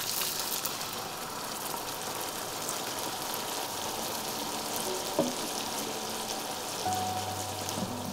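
Vegetable broth poured into a hot pan of carnaroli rice, sizzling steadily. There is one sharp tap about five seconds in. Soft background music with held notes plays underneath and comes up near the end.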